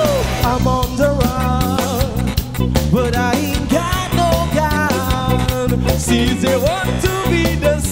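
Live rock band playing: bass guitar and drum kit, with a male singer singing into a microphone.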